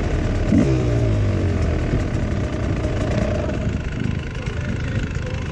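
Several dirt bike engines idling together, with one revved briefly about half a second in.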